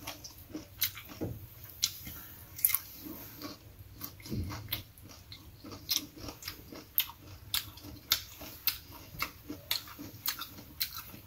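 Close-up wet chewing and lip smacking as a person eats thin slices of mango, with sharp mouth clicks about twice a second.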